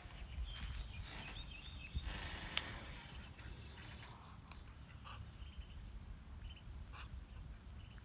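Outdoor ambience of small birds chirping faintly in short, repeated high notes over a steady low rumble, with a brief hissing noise about two seconds in.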